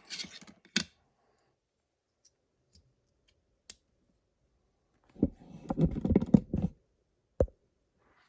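Small metallic clicks and rattles from a padlock and lock-picking tools being handled. A few clicks come at the start, a burst of rattling clicks follows about five seconds in, and a single click comes near the end.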